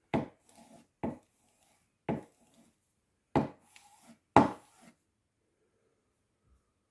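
Freshly sharpened wood chisel knocked into a block of wood five times, about a second apart, each sharp knock followed by a short scrape as the edge pares into the wood.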